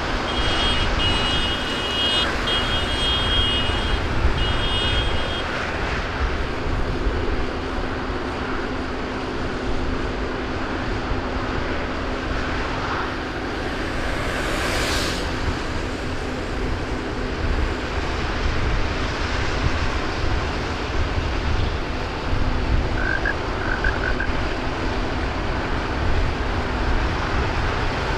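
A convoy of farm tractors driving past, their diesel engines making a steady, continuous drone. A high tone sounds on and off during the first five seconds.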